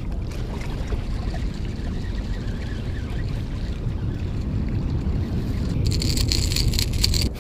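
Steady low wind rumble buffeting the microphone. About six seconds in, a quick run of light, rapid clicking and rattling joins it.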